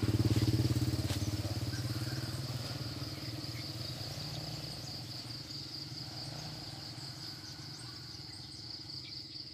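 A small engine running steadily, loudest at the start and slowly fading away, under a constant high-pitched drone of insects.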